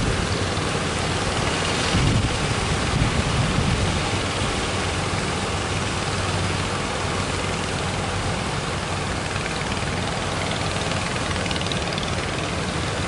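Boat engine running with a steady low hum under a constant wash of surf and wind noise; the engine sound is strongest in the first few seconds.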